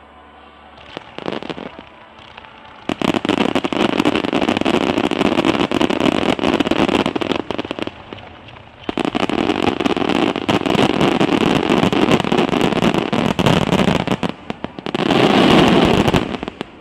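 Grand-finale fireworks barrage: shells bursting and crackling in rapid, dense volleys, in two long runs with a short lull between. It swells to its loudest just before the end, then fades out.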